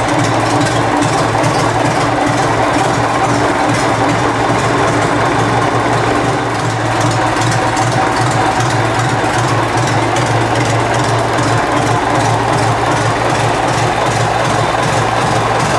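Restored 1910 Sterling marine engine running steadily at idle, its firing strokes beating in an even, regular rhythm.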